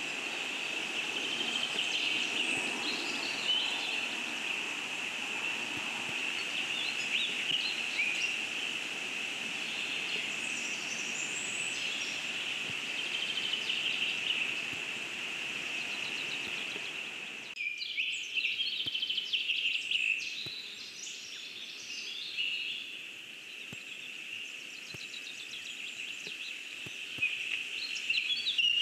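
Forest ambience of small birds chirping and singing over a steady high-pitched hiss. About two-thirds of the way through, the low rushing background drops away abruptly, and the birdsong continues.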